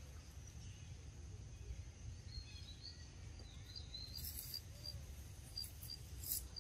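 Faint forest ambience: a steady high insect drone over a low rumble, with a bird or insect giving short chirps about two or three times a second in the second half. Two brief hissy rustles come in near the middle and near the end.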